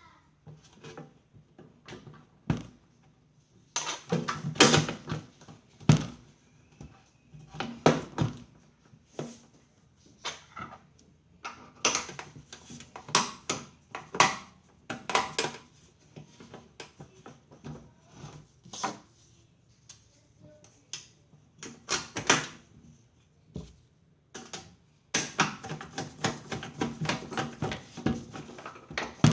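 Irregular knocks, clicks and clatter of hard parts being handled and set down, coming thicker and faster in the last few seconds.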